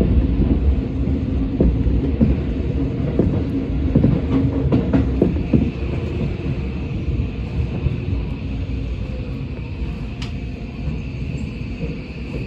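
Tokyo Metro 17000 series subway train running underground, heard from inside the car: a low rumble with wheel clicks over rail joints, slowing as it arrives at a station. From about halfway a steady high tone comes in while the rumble slowly fades.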